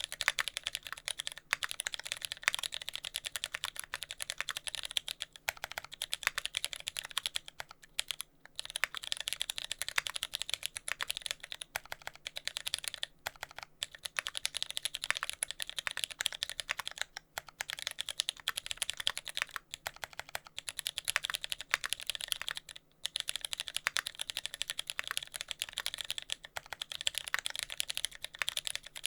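Fast, continuous typing on a TX65 mechanical keyboard with hand-lubed Cherry MX Brown tactile switches, a brass plate, GMK keycaps and no dampening; many keystrokes a second, with a few brief pauses. The tactile bumps were left unlubed, which the owner says gives a slight contact-like noise with each press.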